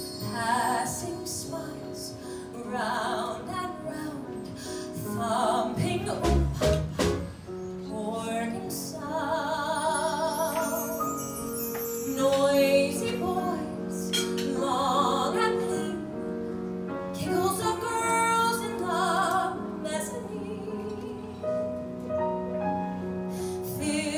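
A woman singing a musical-theatre ballad into a microphone, with wide vibrato on her held notes, accompanied by piano.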